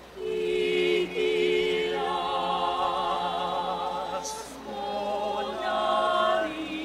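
Mixed choir of men's and women's voices singing sustained chords with vibrato, breaking off briefly about a second in; a short hiss comes about four seconds in.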